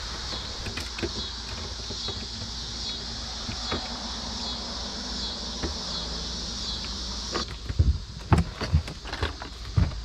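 Scattered clicks and knocks of hands working on battery terminals and charger leads, over a steady high-pitched rippling hiss that cuts off about seven seconds in and a low hum.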